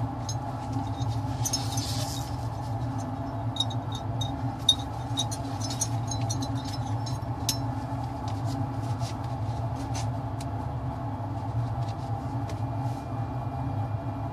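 Steady hum of a fume hood's exhaust fan, with scattered light clicks and taps of a glass slide and coverslip being handled with gloved fingers, the clicks thinning out in the last few seconds.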